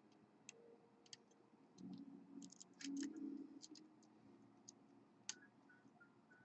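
Faint, irregular small metallic clicks and ticks of a hook pick and tension wrench working the pins of a pin-tumbler lock.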